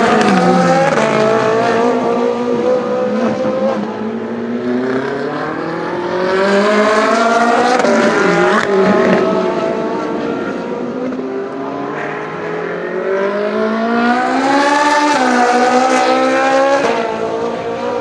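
Ferrari 458 Challenge race cars' V8 engines running hard past on the circuit, several cars overlapping. Their pitch climbs under acceleration and drops away as each car goes by, loudest around the middle and again near the end.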